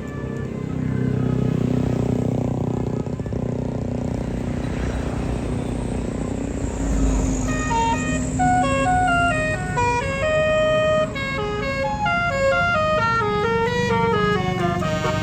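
A bus engine running, then from about halfway through a bus telolet horn, a set of air-horn trumpets, plays a fast tune of stepping notes over the engine.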